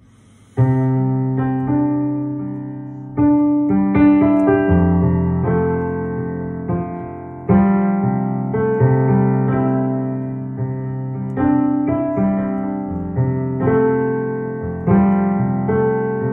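Piano playing a slow instrumental introduction, starting about half a second in: sustained chords struck every few seconds and left to ring and fade.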